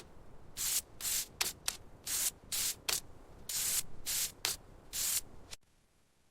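About ten short hissing strokes of rubbing or scraping, unevenly spaced, cutting off suddenly near the end.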